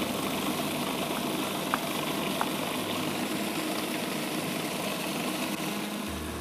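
Electric kitchen blender running with a steady motor whir. Two faint knife taps on a wooden cutting board about two seconds in.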